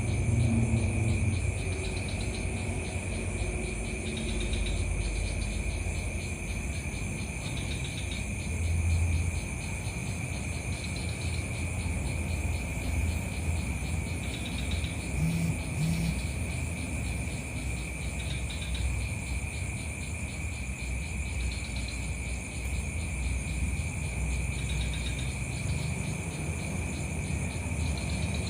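Insects trilling steadily, with a continuous low rumble underneath.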